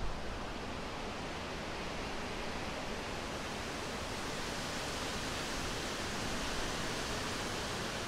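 Steady wind, an even hiss that holds level with no gusts.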